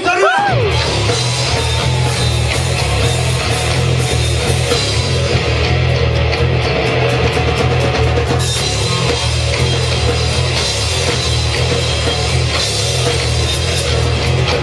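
Rock band playing loud music: drum kit and cymbals over a repeating low bass riff, with electric guitar.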